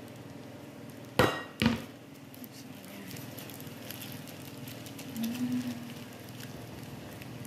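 Two sharp clacks of kitchenware knocking on the counter about half a second apart, the first ringing briefly, followed by faint clicks and handling noise as the fish on the baking tray are touched.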